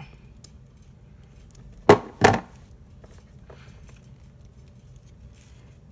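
A razor blade being worked around the outer PVC jacket of a white extension cord to cut it off. Light handling noise is broken by two short, sharp noises about a third of a second apart, about two seconds in.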